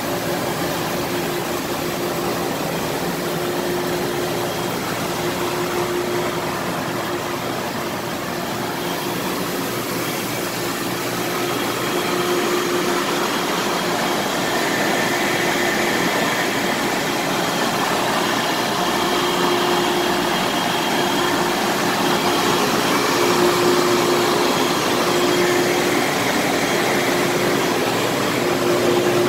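Chemcut 547 XL PCB developer running: its pump motors whir and developer solution sprays inside the process chambers, a steady mechanical whir and hiss. It grows a little louder about twelve seconds in.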